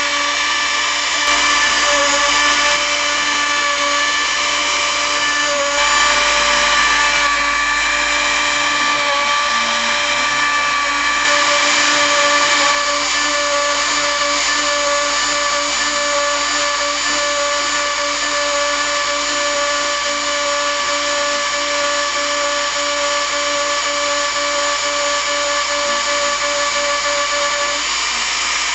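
Hobby CNC milling machine's spindle running at a steady high-pitched whine while it cuts, the cutting noise growing louder for a few seconds at a time.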